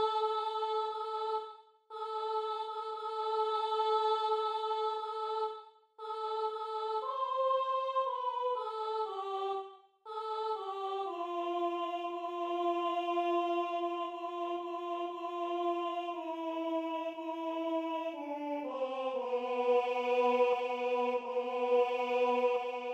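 Practice track of the alto part of a four-part choral hymn: a slow melody of long, steady held notes. It breaks off briefly about 2, 6 and 10 seconds in, steps down through a short run of notes around 8 to 10 seconds, and ends on a lower held note.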